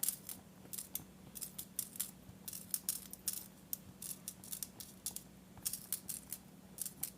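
Irregular small clicks, ticks and light rustles of craft materials being handled at close range, over a steady low hum.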